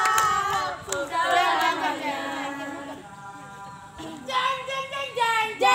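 A group of girls and young women singing a cheer chant together. A held note at the start gives way to a quieter stretch partway through, and short, rhythmic phrases pick up again near the end.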